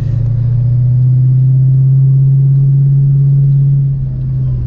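2004 Mustang GT's 4.6-litre V8 pulling steadily in gear, heard from inside the cabin, with a steady low engine note that drops away about four seconds in.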